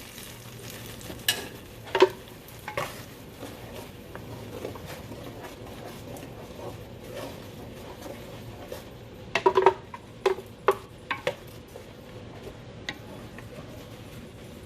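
Mole paste sizzling as it fries in hot oil in a pot, with a spoon scraping and knocking against the pot as it is stirred. A few knocks come near the start, and a cluster of louder ones comes about nine to eleven seconds in.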